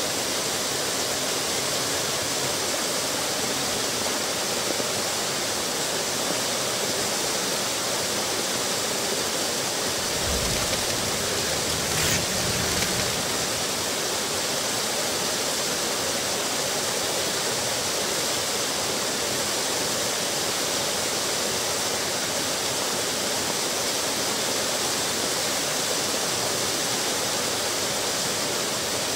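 Small waterfall pouring over a stone weir into a pool: a steady rush of splashing water.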